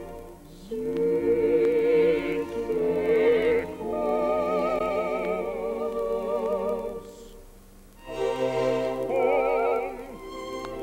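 Background music: an operatic voice singing long held notes with a wide vibrato over soft accompaniment, in three long phrases.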